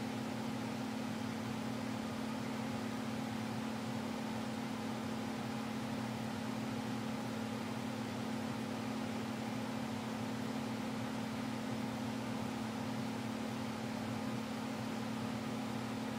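Box fan running: a steady low hum over an even rush of moving air.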